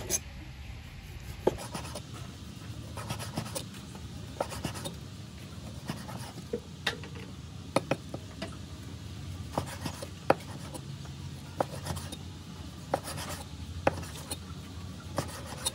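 Kitchen knife slicing raw beef on a round wooden chopping board: irregular sharp taps, roughly one a second, as the blade goes through the meat and meets the board.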